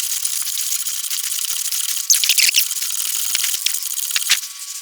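Ratchet wrench clicking in quick, uneven runs, with rattling metal, as the trailing-arm bolts are tightened.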